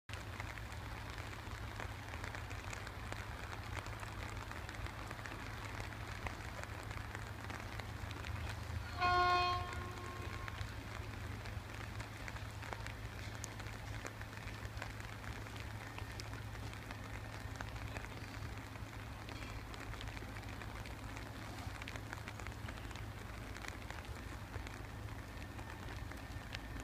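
Steady rain falling, an even hiss throughout. About nine seconds in comes a single short horn-like tone, the loudest sound.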